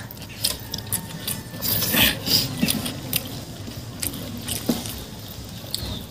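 Eating sounds: fingers squishing and scooping biryani rice on banana leaves, with chewing and scattered small clicks and rustles. A louder rush of noise comes about two seconds in.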